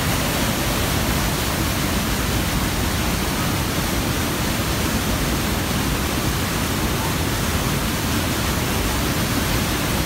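Steady rush of a mountain stream's white water in a narrow rocky canyon, an even noise with no breaks.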